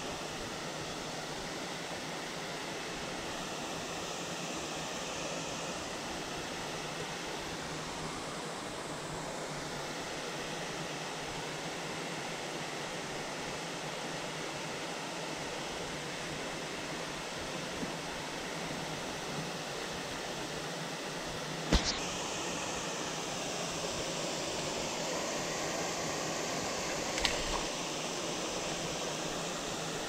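Steady rush of water from a rocky mountain stream spilling over small cascades. Two sharp clicks about five seconds apart come in the last third.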